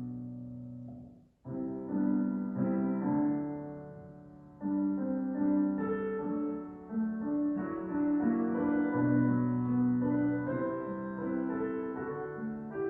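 Keyboard playing a slow hymn tune in held chords with a melody above, breaking off briefly about a second in and dipping again near the four-second mark before carrying on.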